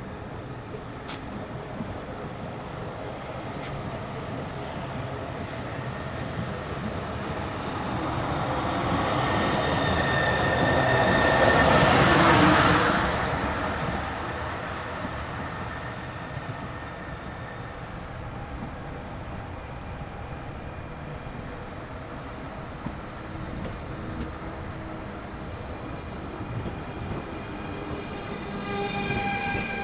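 A train passing on the station tracks: a steady rolling rumble that swells to its loudest about twelve seconds in and fades again, with a thin high wheel squeal as it goes by.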